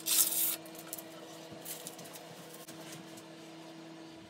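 A rag rubbed over the wooden box base in one brisk stroke in the first half second, then a steady faint hum with a few light handling noises as hands are pressed on the box to check the finish, which is still a little tacky.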